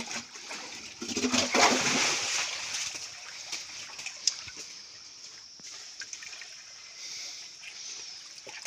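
Water splashing and sloshing as a hand scoops and bails a shallow muddy pool among rocks, loudest about a second in, over a steady trickle of running stream water.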